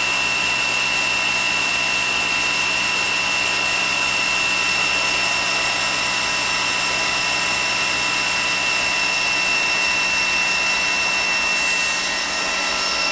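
Fadal CNC milling machine's spindle and small end mill cutting a profile pass: a steady high whine over an even hiss, with the level dipping slightly near the end. The program is repeating the profile one 100-thou step deeper in a looped subroutine.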